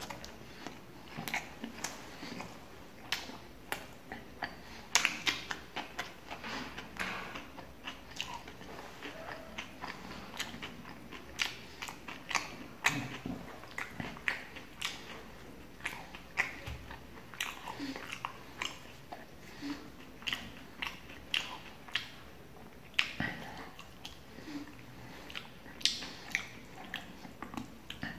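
Person chewing mouthfuls of roti dipped in tarka, with many short sharp mouth clicks coming at an irregular pace.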